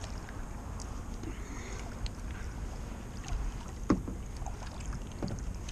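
Kayak paddling: a double-bladed paddle dipping and splashing in the water, with a few sharp taps, over a low rumble of wind on the microphone.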